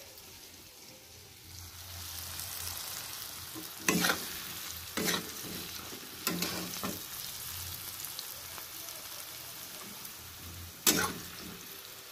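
Cabbage and ground chana dal pakoras deep-frying in hot oil, a steady sizzle that grows louder about a second and a half in. A few sharp knocks, four in all, from the stirring spoon against the pan, with the loudest near the end.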